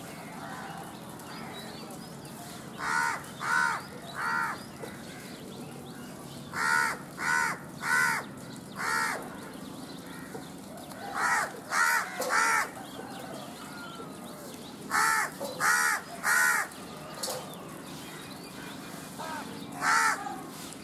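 A crow cawing in runs of three or four harsh caws, a run about every four seconds, over steady faint background noise.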